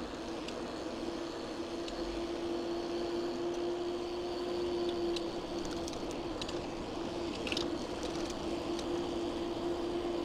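Steady whine of an electric bike's assist motor while riding, over tyre noise on asphalt, with a few light clicks.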